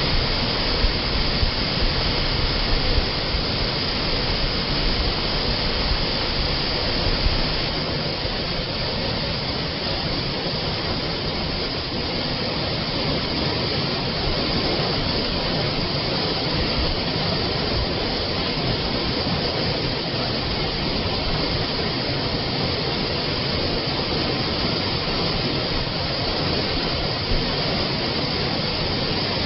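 Spring water flowing in a steady, continuous rush.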